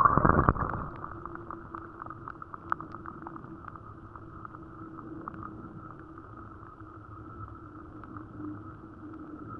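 Muffled, steady water noise heard by a camera submerged in a shallow stream, with the high end cut off and faint scattered clicks. A loud splash-like rush fades within the first second.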